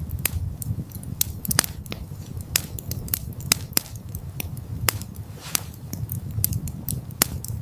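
Campfire crackling: irregular sharp pops and snaps over a low, uneven rumble of burning.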